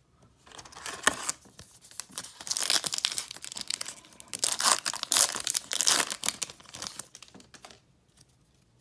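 Foil baseball card pack wrapper being torn open and crinkled, in several rustling spells that stop about a second before the end.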